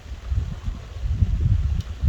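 Wind buffeting the microphone in gusts, a low uneven rumble that grows louder about a second in, over a faint steady hiss of soft rain.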